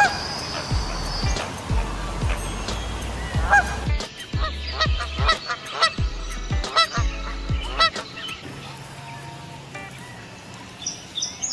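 Geese honking in a rapid series of short calls, over background music with a steady bass beat.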